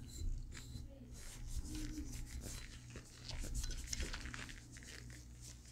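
Faint rubbing and scratching of a cloth rag being wiped over a Glock pistol's steel slide.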